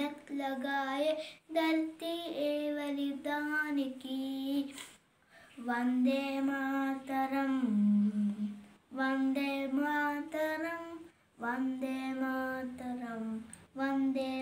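A young boy singing solo without accompaniment, in long held phrases with short breaths between them.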